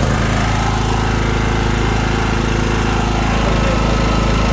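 3 kVA petrol generator's small engine running at steady speed, just started on its electric starter with the choke set.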